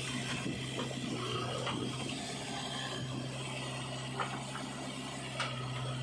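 JCB 3DX backhoe loader's diesel engine running steadily as its bucket tips soil into a tractor trolley, with a few short knocks scattered through.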